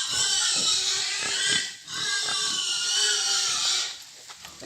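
Pig squealing: two long, loud, high-pitched squeals, one straight after the other, stopping about four seconds in.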